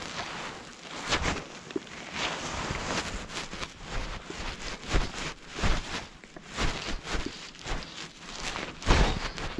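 Irregular swishing and rustling of a puffy synthetic jacket sleeve and hands handling fly line close to the microphone. The loudest brush comes near the end.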